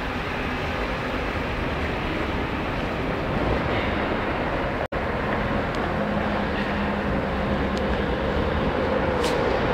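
Ganz UV tram running slowly through an underground tram station: a steady rumble with an electric motor hum that grows stronger near the end, echoing in the tunnel.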